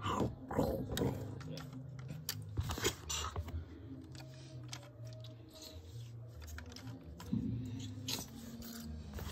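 Plastic LEGO pieces clicking, knocking and rattling as they are handled, with a low steady hum underneath.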